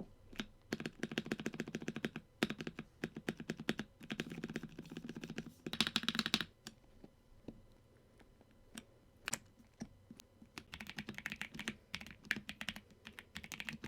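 Typing on a Redragon 60% mechanical keyboard fitted with Akko Bittersweet tactile switches: rapid key clicks in a long burst, a pause with a few single presses, then another burst near the end.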